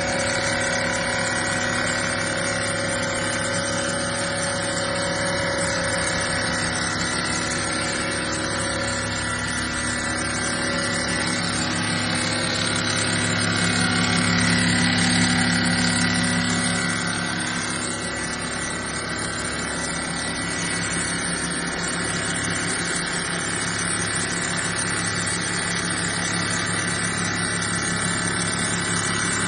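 WLCNC-500 CNC bridge saw's diamond blade cutting a granite slab under a water spray, with the steady running of the spindle motor and the grinding of the cut. It grows a little louder about halfway through.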